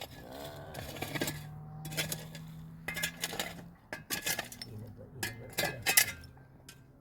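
Scattered light clinks and knocks of small hard objects being handled, in several short clusters, over a faint steady low hum.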